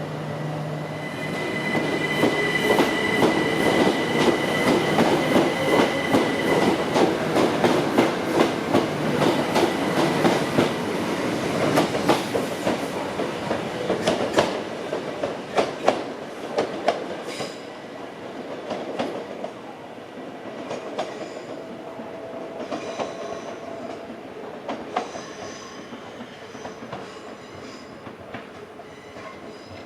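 Train wheels clattering over rail joints in quick clicks, with a steady high squeal during the first few seconds. The sound swells about a second in and dies away over the second half.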